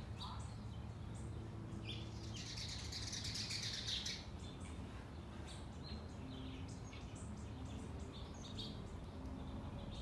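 Small songbirds chirping repeatedly in short high notes, with a louder, denser stretch of chirping about two and a half to four seconds in, over a steady low background rumble.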